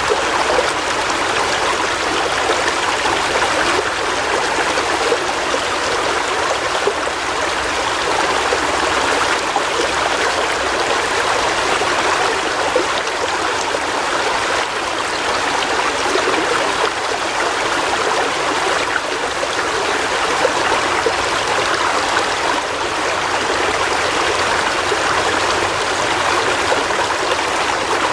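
River water flowing over rocks: a steady rushing and babbling with no let-up.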